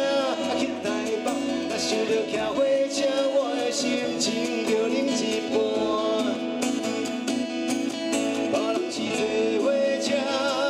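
Live song: a man singing into a microphone while strumming an acoustic guitar.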